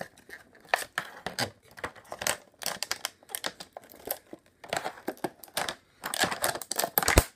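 Scissors cutting into a clear plastic blister pack, the stiff plastic crinkling and crackling in irregular bursts, with a sharp click near the end.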